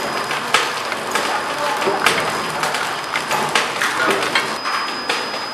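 Horizontal flow wrap packing machine running: steady mechanical noise with rapid, irregular clicks and knocks from its rollers and sealing head, and a thin high whine coming in near the end.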